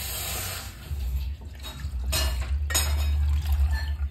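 Water being poured from a small steel pot into a metal kadhai, splashing as it fills the pan, over a steady low hum.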